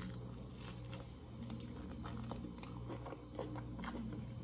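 Faint chewing of a mouthful of carne do sol (Brazilian salted sun-dried beef), with soft scattered clicks and wet mouth sounds over a low steady hum.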